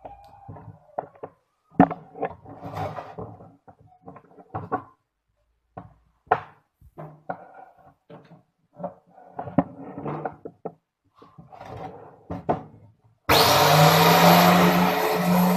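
Irregular clicks, knocks and rubbing of parts being handled on a home-made bench-top metal cutter, then near the end its tile-cutter motor switches on suddenly and runs loud and steady with a high whine over a low hum.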